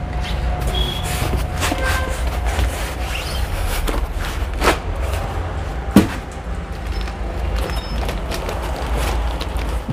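Foam packing blocks and plastic wrap being handled as a boxed VFD controller is unpacked: rubbing and rustling with a few knocks, the sharpest about six seconds in, over a steady low hum.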